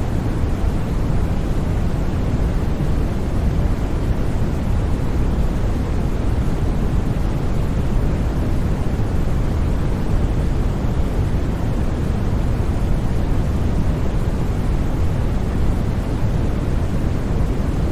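Steady generated white-noise track: an even, unbroken rush that is heavier in the low end than in the treble, with no changes or sudden sounds.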